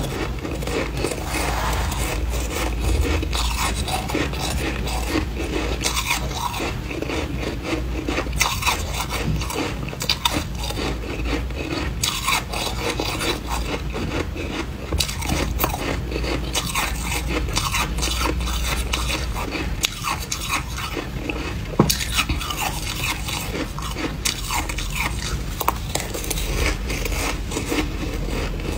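Freezer frost being bitten and crunched, with a metal spoon scraping and scooping the frost from a glass dish; a dense, continuous run of small crunches.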